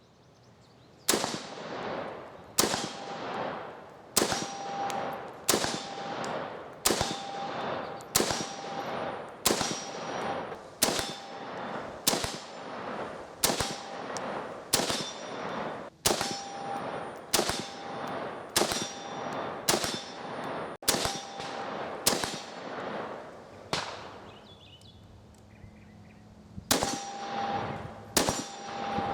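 A DPMS LR-308 semi-automatic rifle in .308 Winchester fires about twenty shots at a steady pace, a little over a second apart, pausing briefly near the end. Short metallic rings of steel targets being hit follow many of the shots.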